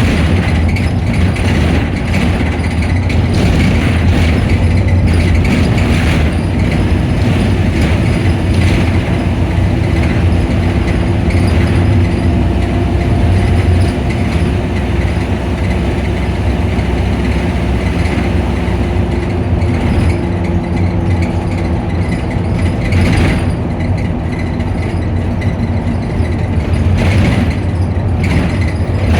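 Optare Solo midibus engine running with its engine cooling fan spinning: a steady low drone with a faint higher whine in the middle and occasional clicks and rattles.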